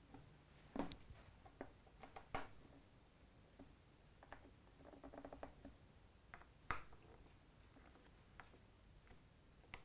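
Near silence broken by a few faint clicks and taps of a hex screwdriver working small bolts on a 3D printer frame, with a short light rattle about halfway through.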